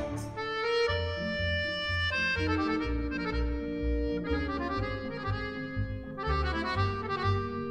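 Background music: a melody of held notes over a bass that pulses about twice a second.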